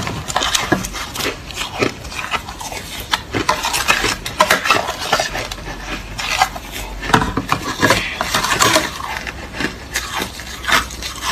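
Crushed ice being chewed close to the microphone: dense, irregular crunching and crackling that comes in bursts, a few bites a second.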